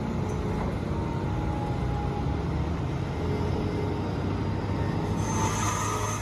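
Caterpillar 6040 hydraulic mining shovel and a large haul truck running under load: a steady, dense low machinery rumble. About five seconds in, a higher whine joins over a steady hum.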